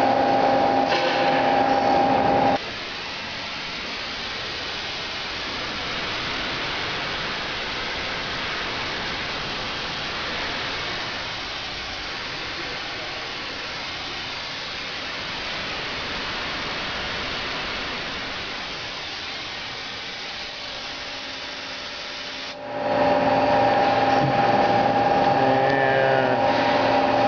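Mazak QT20 CNC lathe humming steadily with the machine powered up. The hum cuts off abruptly about two and a half seconds in, leaving a quieter, even hiss for about twenty seconds, and then the hum comes back abruptly.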